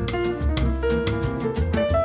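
Instrumental bossa nova background music with a steady beat.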